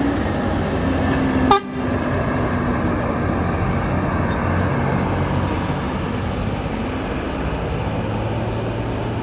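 Heavy diesel bus running past with steady engine and road noise, a brief horn tone sounding about a second in, and one sharp click about a second and a half in.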